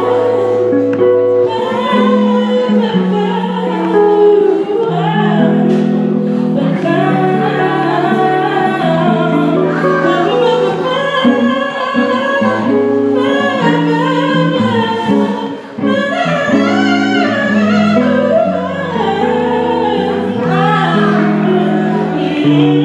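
A woman singing a song over sustained instrumental accompaniment, with held low chords changing every second or two.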